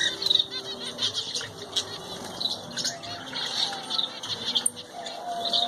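Many small birds in a kept colony chirping over one another in a busy, continuous chatter, with a few longer steady-pitched calls near the end.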